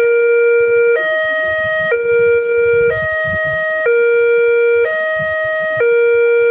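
Railway level crossing's new electronic warning siren sounding, alternating steadily between two tones about once a second.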